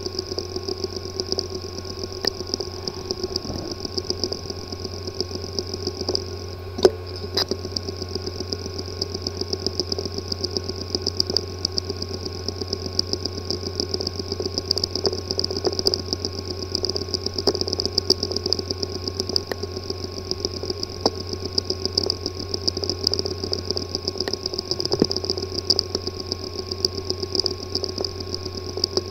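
Hard disk drive with a physically damaged disk assembly running: a steady whirring hum with rapid, uneven clicking and ticking all through, and one sharper click about seven seconds in. The clicking is the symptom of a damaged disk assembly, leaving the drive unreadable by any computer.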